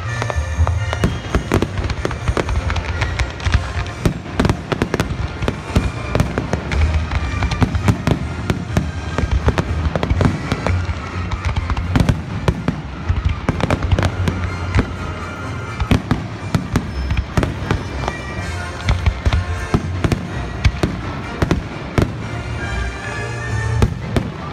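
Fireworks display: a dense, continuous run of bangs, pops and crackling from aerial shells and ground fountains, with music playing underneath.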